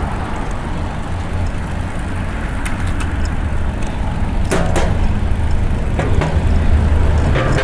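Steady low rumble of passing road traffic and wind while riding a bicycle, growing slightly louder, with a handful of sharp clicks and ticks scattered through it.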